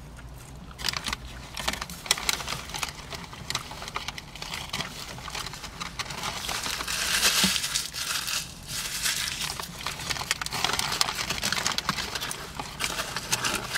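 Paper food wrapper crinkling and crumpling as it is handled: a run of rustles and crackles that grows loudest a little past the middle.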